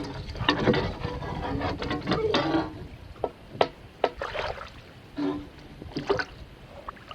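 Water splashing and trickling around a boat on the river, with scattered knocks and clicks.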